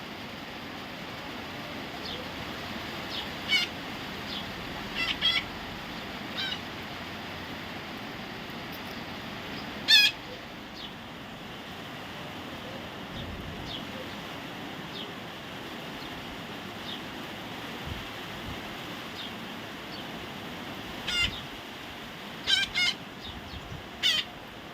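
A parrot giving short, sharp squawks, singly and in quick pairs, with the loudest about halfway through and a cluster near the end, over a steady background hiss.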